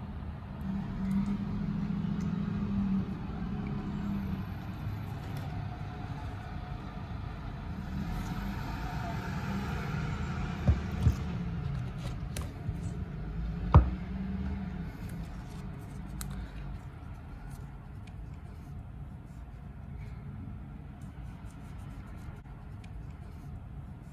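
Low steady rumble under quiet handling of a smartphone and its cardboard packaging. Three sharp knocks come about eleven and fourteen seconds in.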